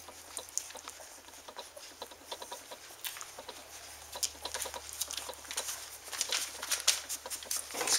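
Soft, irregular scratching and tapping of a newborn standard poodle puppy's paws as it crawls over paper on the whelping bed, the taps coming thicker after about three seconds.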